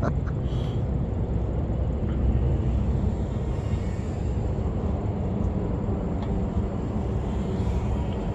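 Micro brushless FPV quadcopter in flight, a steady motor hum under a heavy low rumble.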